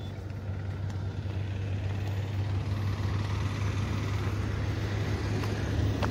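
Road traffic: a passing vehicle's engine and tyre noise swelling over the second half, over a steady low rumble.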